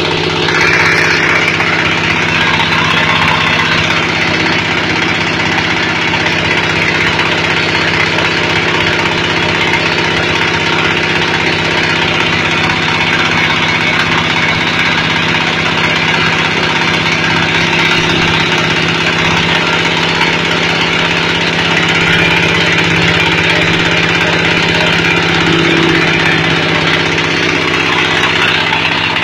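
Fish-feed pellet extruder machine running steadily, a loud constant mechanical drone that does not change over the stretch.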